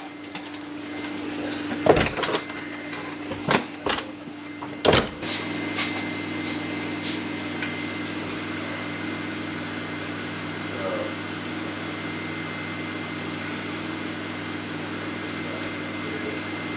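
A steady mechanical hum with a few fixed tones, with several sharp knocks in the first five seconds.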